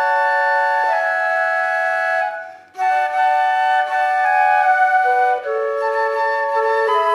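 Flute trio playing held notes in close harmony, the three parts moving from chord to chord. All the flutes stop together for a moment about two and a half seconds in, then come back in.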